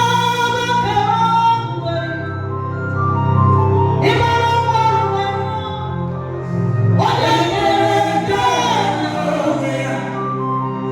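Gospel music with singing, slow sustained vocal phrases over a steady low accompaniment.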